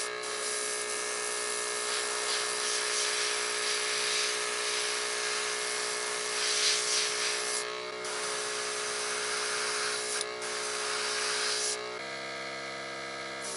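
Small airbrush compressor running with a steady hum while the airbrush hisses, spraying white primer onto a wooden crankbait. The hiss breaks off briefly about 8 and 10 seconds in and stops near the end, when the compressor's hum changes pitch.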